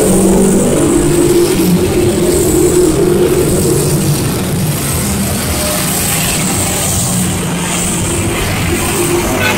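Busy multi-lane road traffic heard from above: motorcycle and car engines running steadily, with a constant low rumble.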